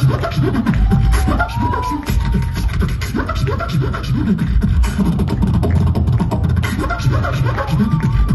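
Beatboxing amplified through a handheld microphone: a dense, steady rhythm of vocal kick drums, snares and clicks over heavy bass, with a few short gliding high tones about a second in and again near the end.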